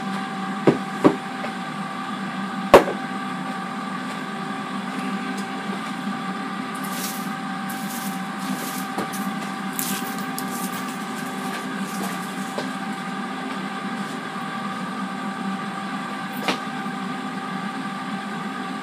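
Countertop air fryer running with a steady hum of its fan and several steady tones. A few sharp knocks come in the first three seconds, the loudest nearly three seconds in, and one more near the end.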